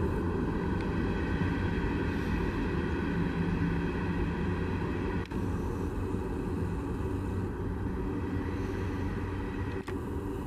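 Diesel locomotives of a CSX coal train running: a steady rumble with a stack of steady engine tones.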